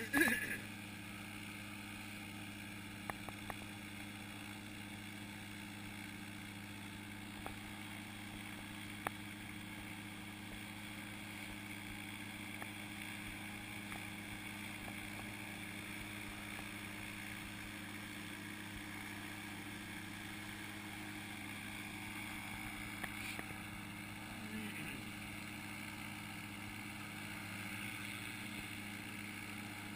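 Powered parachute engine idling: a steady, even low drone that holds one pitch.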